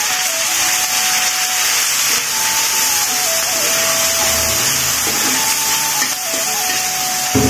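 Water poured into hot oil and ginger-garlic paste in a kadai, hissing and sizzling loudly and steadily while a spatula stirs it through.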